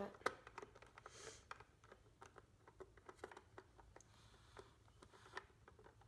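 Faint, irregular small clicks and scratches of a screwdriver turning a terminal screw down onto a wire on a fire alarm's terminal block.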